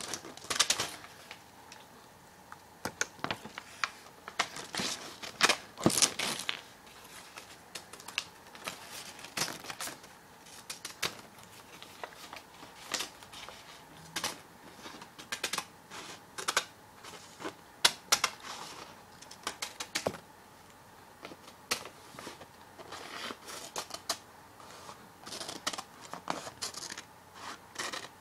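Scissors cutting paper: a long run of crisp snips at an uneven pace, some in quick clusters, with short pauses between.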